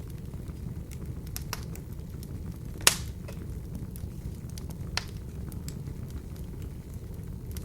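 Wood fire burning in an open fireplace: a steady low rumble with scattered small crackles, a sharp pop about three seconds in and a smaller one near five seconds.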